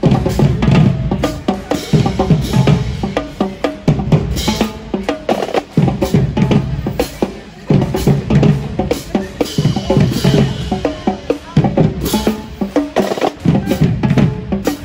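Marching band drumline playing a loud marching cadence on snare drums and bass drums, in quick rhythmic patterns with rolls.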